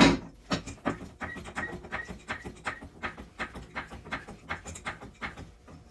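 A jack being pumped to lift a golf cart: a knock at the start, then an even run of clicks, nearly three a second, several with a short squeak.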